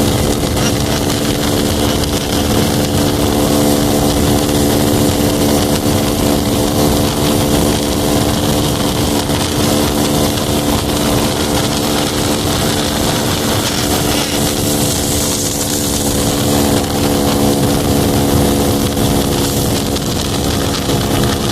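Honda Pop 110 motorcycle's small single-cylinder engine running at a steady, unchanging pitch, with a broad hiss over it.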